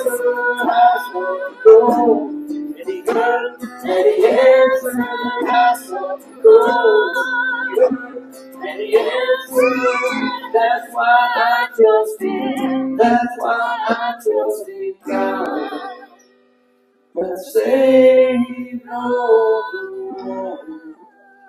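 A worship song sung with vibrato over instrumental accompaniment, breaking off briefly about sixteen seconds in before the singing resumes.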